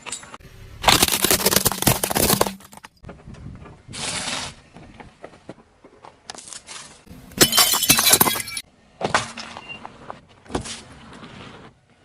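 Car tyre rolling over and crushing brittle objects: a series of cracking, crunching and breaking sounds with a glassy edge. They come in about half a dozen short bursts that start and stop abruptly, the loudest near the start and about two-thirds of the way through.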